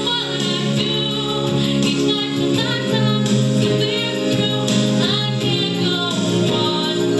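A woman singing a pop ballad into a microphone, holding long wavering notes over steady instrumental accompaniment.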